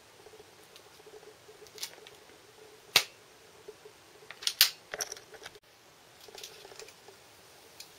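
Sharp mechanical clicks and snaps from a homemade wooden rifle-style slingshot: one loud snap about three seconds in, then a quick cluster of clicks a little later, with fainter clicks scattered around them.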